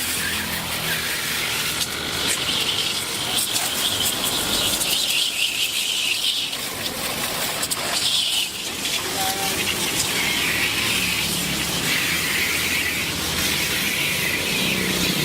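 Steady, loud hissing noise with a high, squeal-like edge that swells and fades.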